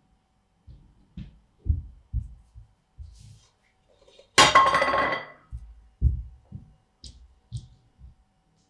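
Soft low thuds, then a loud clatter with a metallic ring about halfway through as a stainless steel serving bowl and serving spoon knock together; more soft thuds and two brief high scrapes follow.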